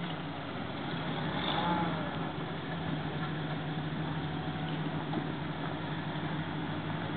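Jeep CJ7's engine running steadily at low revs as it crawls slowly over a rocky trail, swelling briefly about a second and a half in.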